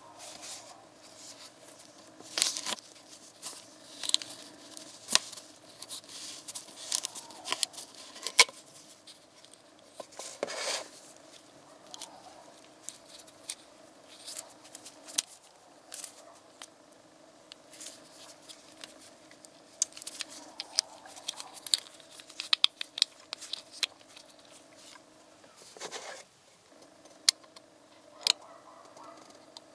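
Plastic screw cap of a motor-oil bottle being unscrewed and its tamper-evident ring broken off: a long run of irregular sharp clicks, snaps and crackles of plastic, with gloved fingers rubbing on it. A faint steady hum lies underneath.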